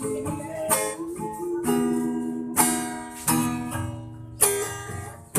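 Music on a strummed string instrument, likely guitar: chords struck about once a second, each left ringing and fading before the next.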